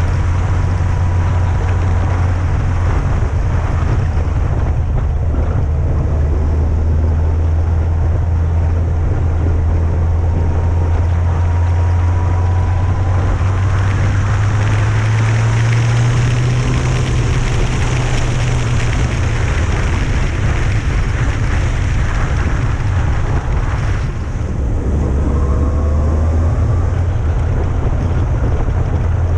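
Yamaha FJR1300A's inline-four engine running at road speed, with wind rushing over the microphone. The engine note climbs about halfway through and settles back down. There is a brief dip in level a little before the end.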